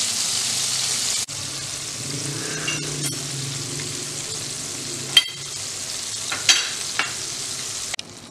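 Batter-coated chicken pieces deep-frying in hot oil in a wok: a steady sizzle, with a couple of sharp clicks in the second half.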